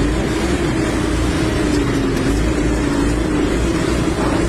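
A truck engine running, heard as a steady drone that wavers slightly in pitch over a low rumble.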